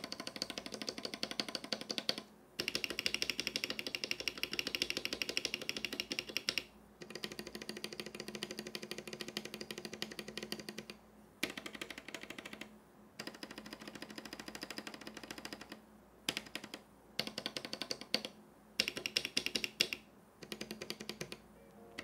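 Plate-mounted keyboard stabilizers on an RK G68 65% board, Krytox-lubed and Bandaid-modded, with no switches fitted. The spacebar, shift, enter and backspace keycaps are tapped in fast runs of a few seconds with short pauses, giving rapid light clacking that tests the stabilizers for rattle.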